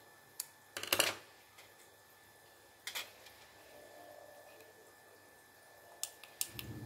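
Handling noise from a plastic wireless microphone and a small screwdriver: a few sharp clicks and scrapes, the loudest cluster about a second in, one near three seconds and several more with a soft thud near the end. A faint steady high whine runs underneath.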